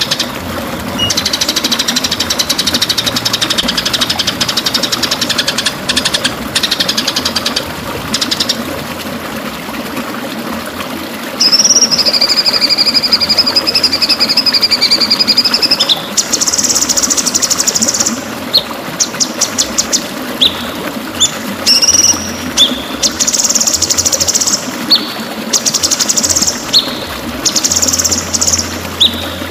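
White-rumped shama (murai batu) singing: fast buzzing trills, then about halfway through a long wavering whistle, and after that a run of short bright phrases and quick rattles.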